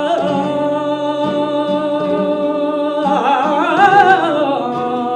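Flamenco singer drawing out a long, ornamented melisma in a cante por farruca, the held note wavering up and down in pitch about halfway through, over acoustic flamenco guitar.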